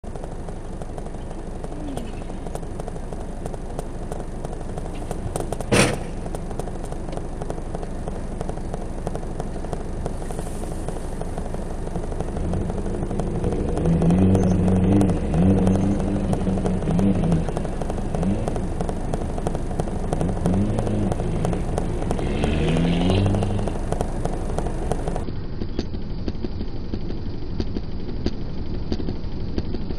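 Rally car engine revving hard close by, its pitch rising and falling again and again as it slides past on snow, loudest as the snow spray hits the car. Steady noise underneath, and one sharp knock about six seconds in.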